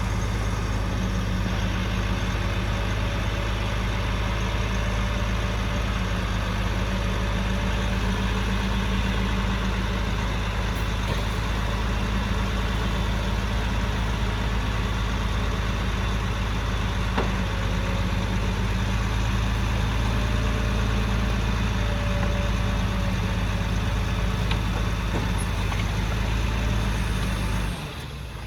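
Heavy earthmoving machine's diesel engine running at a steady, even speed. It drops off abruptly in level shortly before the end.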